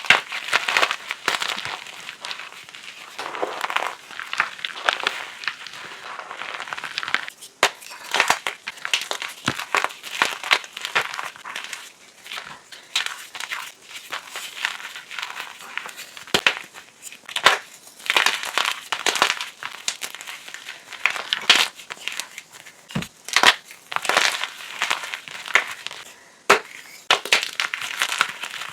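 Blocks of gym chalk being crushed and crumbled, a dense run of dry crunches and sharp snaps with irregular pauses.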